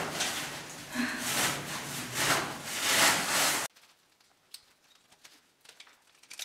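Rough rustling and scraping in uneven swells as a caver works down a rope through a tight rock shaft. It cuts off abruptly a little over halfway through, leaving near silence with a few faint clicks.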